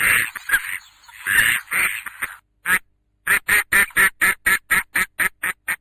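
Ducklings quacking: several quacks close together over the first two seconds, then after a short pause a quick, even run of about a dozen short quacks, roughly five a second, that stops abruptly.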